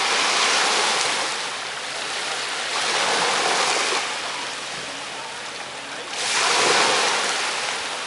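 Small waves breaking and washing up a sand-and-pebble shore, in three surges, the loudest near the end.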